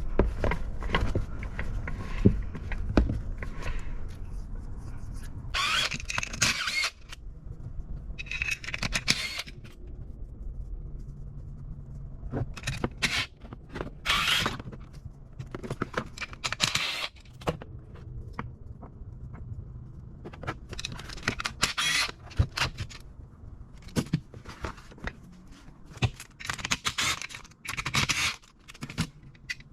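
Metal parts and tools being handled during differential teardown: scattered scrapes and clinks, some brief and some lasting about a second, over a low steady hum.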